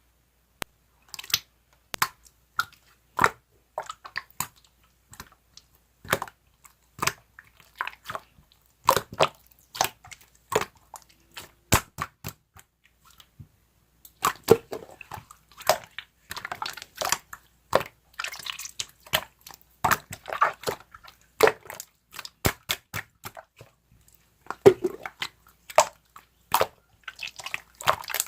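Slime being pressed, stretched and squeezed by hand, making sticky clicks, pops and squelches at an uneven pace, with a short pause about halfway and busier handling after it.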